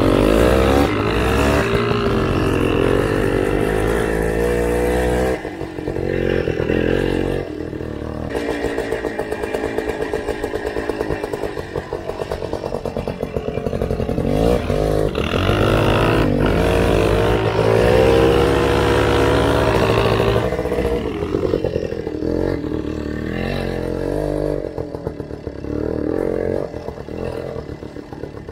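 Off-road motorcycle engines running under throttle, their pitch rising and falling as the riders open and close the throttle. The sound drops abruptly about five seconds in and then carries on.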